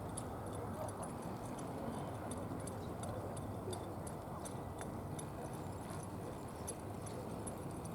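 Hoofbeats of a ridden horse over a steady background hum, with scattered small high ticks.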